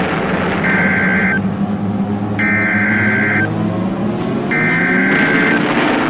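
Outdoor warning siren wailing over a loud, steady rumbling din, its pitch slowly rising toward the end. A short high electronic tone sounds three times, about two seconds apart.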